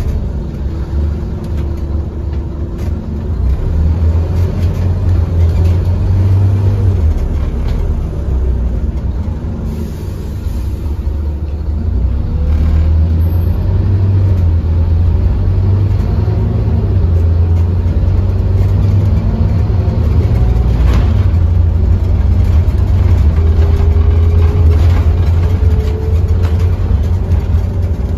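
Scania OmniCity N230UD bus's five-cylinder diesel engine and drivetrain heard from inside the passenger saloon while the bus drives along, a deep rumble that swells as it picks up speed. Near the end a faint whine rises in pitch.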